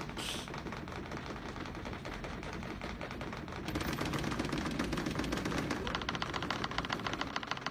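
Pen tips tapping on paper in rapid stippling, a fast rattling run of ticks that becomes more even about halfway through.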